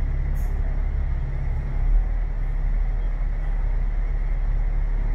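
Hong Kong route 15 bus running, heard on board: a steady low engine drone with road noise. There is a brief louder bump about two seconds in.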